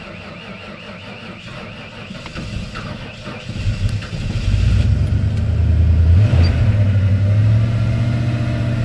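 A 1992 Ford F-150's 5.0-litre V8 starts about three and a half seconds in, then settles into a steady idle. The muffler has a hole in it.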